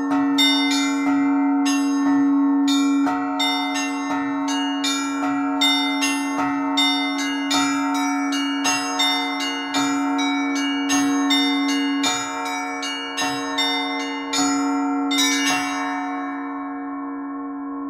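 Russian Orthodox church bells being rung: quick, even strokes on the smaller bells over the steady ringing of a larger bell. The strokes stop a couple of seconds before the end, and the bells ring on, slowly dying away.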